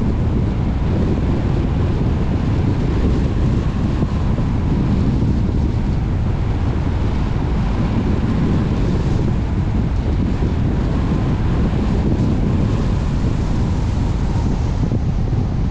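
Steady wind and road rumble of a car driving, strongest low down, with a faint steady tone.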